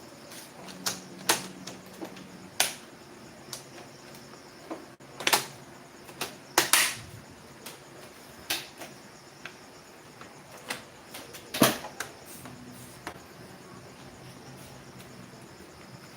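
Irregular sharp clicks and taps of laptop parts and tools being handled during reassembly, about fifteen in all, with a faint steady background.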